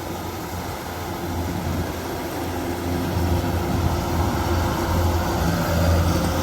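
Rice combine harvester's engine running steadily with a low hum, growing gradually louder as the machine draws closer.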